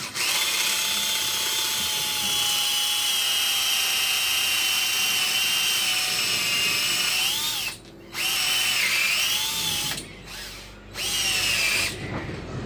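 Cordless drill running at speed, boring two holes through the end of a rubber strip cut from a tyre. Its motor whine runs steadily for several seconds, its pitch sagging under load, then it stops briefly about 8 s in and runs in two shorter spells, the last ending just before the end.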